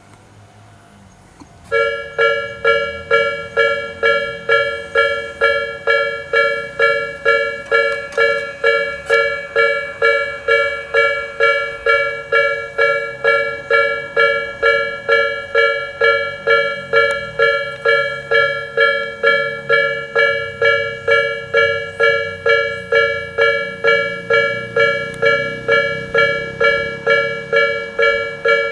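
Japanese railway level-crossing warning bell, the electronic Tobu "sound B" type used on the Nikko Line, starting about two seconds in and then ringing steadily at about two dings a second.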